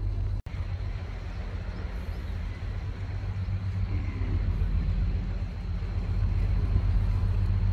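A steady low outdoor rumble with no distinct events, cut off briefly about half a second in and growing a little louder in the second half.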